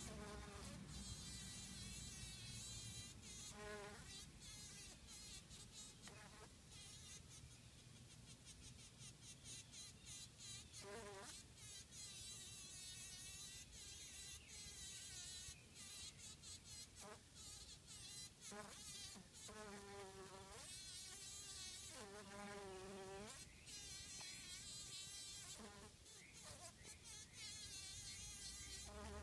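Honey bee buzzing faintly in short bursts that start and stop about six times, the longest about a second and a half, as it beats its wings while entangled in spider silk and fighting a spider.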